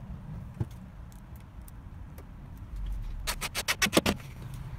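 Cordless impact driver hammering a screw home for about a second near the end, fixing a pipe clip over a copper gas pipe. Before it, a few light clicks of the clip and screw being handled over a low steady hum.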